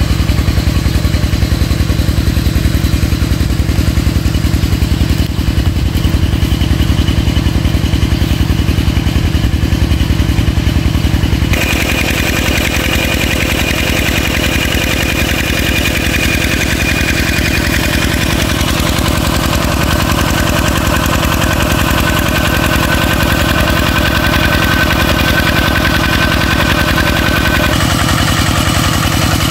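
Single-cylinder diesel engine of a walking tractor running steadily with a rapid, even firing beat, driving a water pump that is drawing down a pond.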